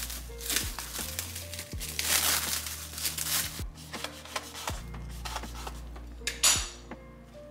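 Plastic wrap crinkling in several bursts as a bagel is unwrapped and handled, over soft background music.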